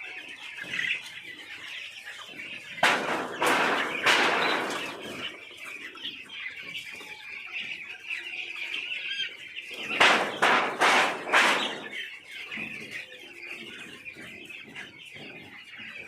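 Thousands of poultry chicks peeping together in a steady, high chorus, with two loud spells of rustling noise, about three seconds in and again about ten seconds in.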